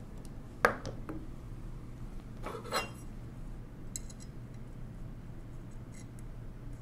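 Small metal clinks and taps from a screw and tool being handled at an old mechanical calculator: a sharp click about half a second in, a ringing rattle around two and a half seconds, then a few faint light ticks.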